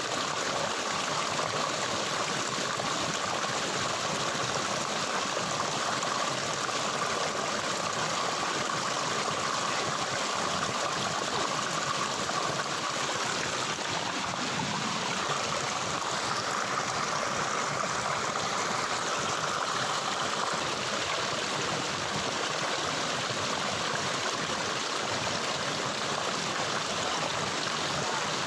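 Flowing stream water, a steady, unbroken sound of moving water.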